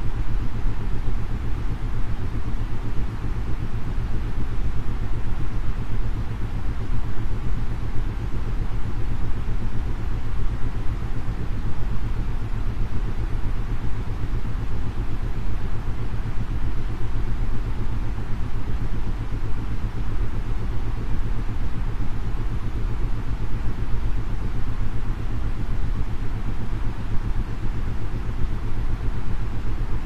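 Steady white noise for sleep, heaviest in the low end, with isochronic tones: a low tone pulsing on and off rapidly and evenly beneath the rushing noise.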